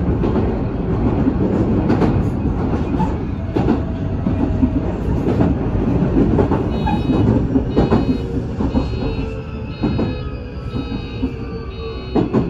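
Shizuoka Railway commuter train running, heard from on board: a steady rumble with the wheels clacking over rail joints every couple of seconds. About halfway through a pulsing high-pitched ringing sets in, and a fainter tone falls slowly in pitch.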